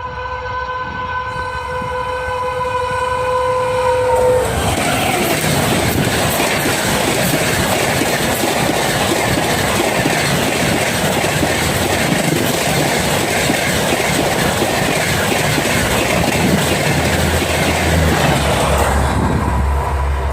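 A WAP5 electric locomotive's horn sounds one long unbroken blast, which ends about four seconds in. The loud rush and track clatter of the express train's coaches passing at about 130 km/h follow, with many rapid clicks of wheels over the rails. Near the end this fades into a low rumble.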